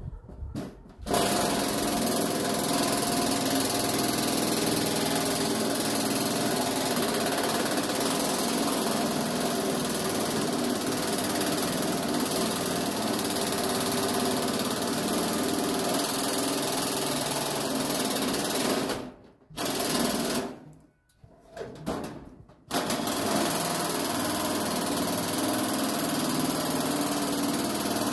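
A power tool running at full speed in long steady runs with a rapid rattling drive, cutting out about 19 seconds in, starting briefly twice, then running steadily again.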